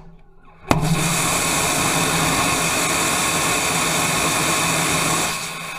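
Small pressure-fed rocket engine with a converging-diverging bell nozzle, about 100 kg of thrust, lighting in a hard start: the tanks are pressurised before the main propellant valves open. It starts suddenly with a sharp crack under a second in, runs with a loud, steady rushing noise and a low hum for about four and a half seconds, then drops off near the end as it shuts down.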